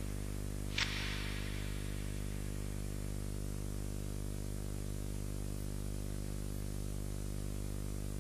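Steady electrical mains hum with its evenly spaced overtones, over a faint hiss, with a single short click just under a second in.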